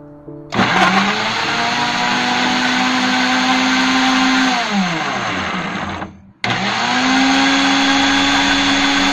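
Countertop blender motor blending taro chunks with milk. It starts suddenly about half a second in, runs at a steady pitch, winds down and stops a little after five seconds, then starts again and runs steadily to the end.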